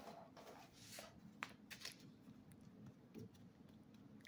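Near silence with faint scattered clicks and light scrapes from an Elmer's glue stick and paper being handled, as glue is rubbed onto the paper's edge.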